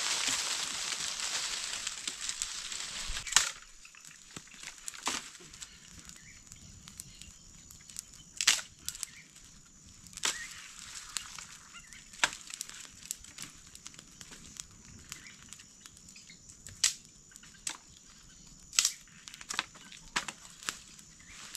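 Wood campfire crackling, with sharp irregular snaps and cracks as dry sticks and branches are broken and laid on it. A rushing hiss fills the first three seconds or so and stops abruptly.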